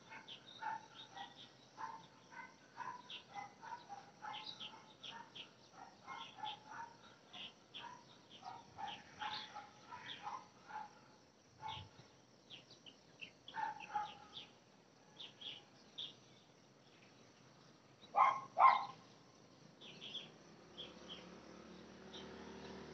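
Short animal chirps repeating quickly and unevenly. About 18 seconds in, a dog barks twice, louder than anything else. A low steady hum comes in near the end.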